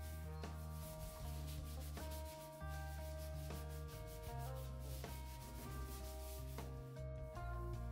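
A sponge scrubbing a sink basin in quick back-and-forth rubbing strokes, over background music with sustained low notes.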